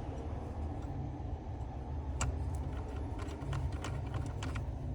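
A few light clicks and ticks from small parts being handled during reassembly: one sharp click about two seconds in, then fainter ticks. A steady low hum runs underneath.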